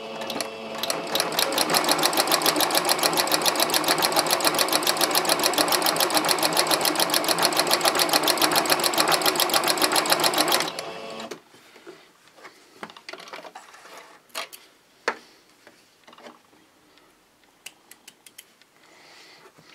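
Sewing machine stitching two layers of fabric along a drawn diagonal line, a fast even run of stitches lasting about ten seconds and then stopping abruptly. Faint scattered clicks and handling noises follow.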